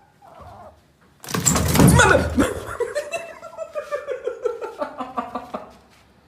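A person laughing out loud: a sudden burst, then a long run of pulsed ha-ha sounds that slowly drop in pitch and fade.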